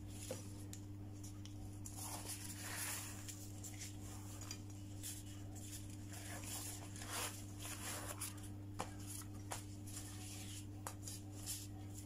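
Soft, intermittent rustling of thin lumpia wrappers being peeled apart and laid down by gloved hands, with a few light clicks in the second half, over a steady low hum.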